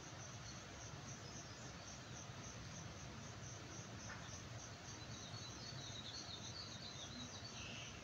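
Insect chirping in a steady, even, pulsing rhythm. A few bird chirps join in from about five seconds in.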